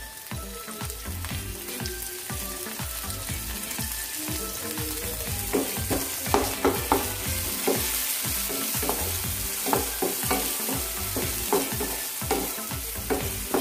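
Chopped onion and tomato sizzling in oil in a frying pan, with a steady hiss. The pan is stirred, and the utensil knocks and scrapes against it in quick clicks, more often in the second half.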